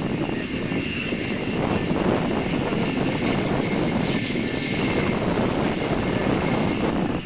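Lockheed F-104 Starfighter's J79 turbojet running on the runway: a steady loud jet rush with a thin high whine on top.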